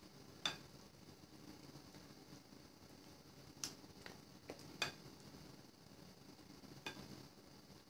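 A spoon stirring a stiff flour-and-water dough in a mixing bowl, knocking and clicking against the bowl's side a handful of times. The wheat gluten flour is soaking up the water and turning into a spongy dough.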